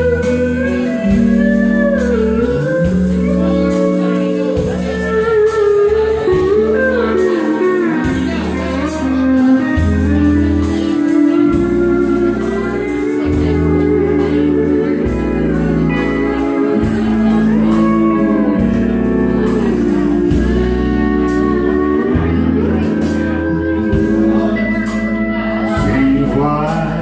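Live band music: a pedal steel guitar's sliding, gliding notes over drums and guitar, with singing.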